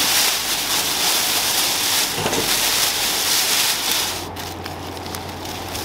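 Thin clear plastic bag liner crinkling and rustling as it is pulled open inside a cardboard box. It stops about four seconds in, leaving a steady low machine hum.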